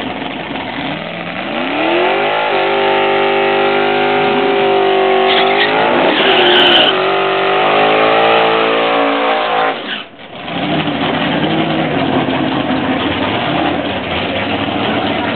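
1973 Plymouth Duster pro stock's 426 Hemi V8 revved hard in a burnout, its rear tyres spinning: the pitch climbs, holds high, climbs again and falls away. After a sudden break about two-thirds of the way through, another drag car's engine runs lower and steady.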